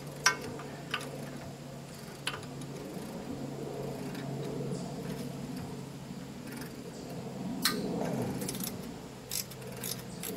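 A wrench clicks and clinks on the engine's mounting bolts as they are worked loose. A few sharp metallic clicks are scattered through, with a steady low hum underneath.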